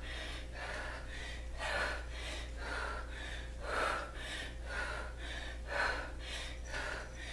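A woman breathing hard and rhythmically from exertion during kettlebell squats, a sharp breath roughly every half second to a second.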